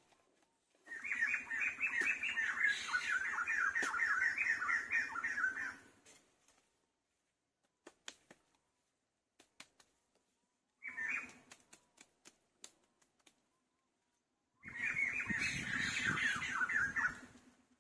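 Frog calling in long bouts of rapid, evenly repeated notes, each bout lasting several seconds, with a short burst in between. Scattered light clicks fill the gaps.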